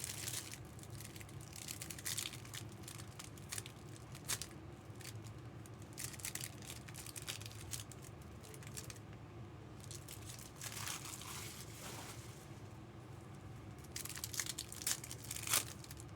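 Trading card pack wrappers being torn open and crinkled, in irregular sharp crackles with busier handling near the end.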